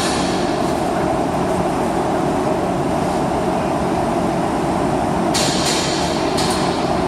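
Steady mechanical background noise with a constant hum, with a few brief hissing rustles about five to six seconds in.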